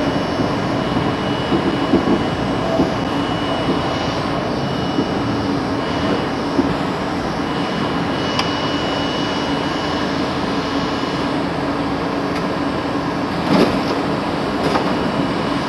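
Steady hum and mechanical noise of an R32 subway car, heard at its front window, with a faint high whine that stops about halfway through. There is a sharp click a little past halfway and a single knock near the end.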